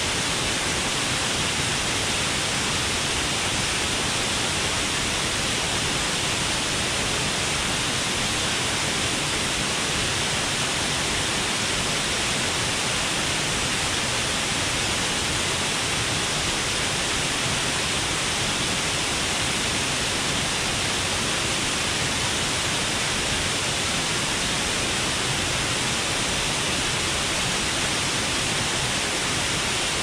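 Steady, even rush of falling water from a waterfall, unchanging throughout.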